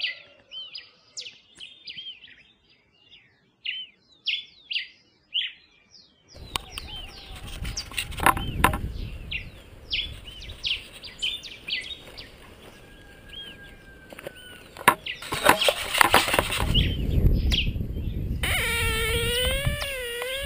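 Small birds chirping in short repeated calls. About six seconds in, the outdoor rumble of wind and handling noise starts, with a few knocks, while the chirps go on. Near the end, the tone of a Greswell Discovery 2600 pulse-induction metal detector sounds, its pitch wavering up and down as the search coil is swept over the dug hole.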